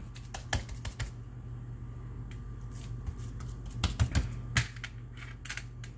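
Scattered light clicks and taps, a dozen or so at uneven spacing, as hands press and shape a raw ground-meat meatloaf in a metal baking pan, over a steady low hum.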